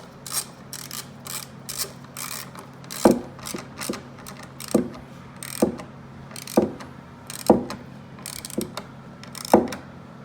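Pittsburgh 3/8-inch drive hand ratchet clicking as it is worked back and forth on a chair's bolt. The clicks come quickly for the first few seconds, then give way to louder single clicks about once a second.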